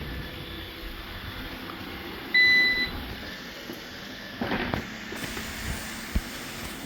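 Roomba robot vacuum giving a single electronic beep, one steady half-second tone, over a steady low hum. A short knock follows a few seconds later.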